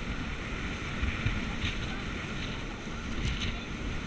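Wind buffeting an action camera's microphone over rushing water and spray as an inflatable banana boat is towed at speed across the sea; a steady, rumbling rush.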